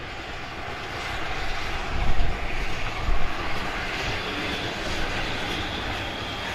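GWR Hall class two-cylinder 4-6-0 steam locomotive 6989 Wightwick Hall pulling its train of coaches away: a steady rushing roar of exhaust and rolling stock, with a few louder beats about two to three seconds in. A thin, steady high squeal joins about four seconds in.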